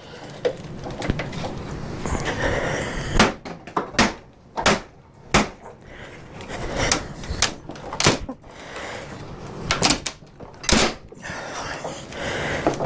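A hammer and pry bar working on a nailed wooden shipping crate: a series of irregular sharp knocks with scraping and handling of the boards in between, as the crate boards are worked loose.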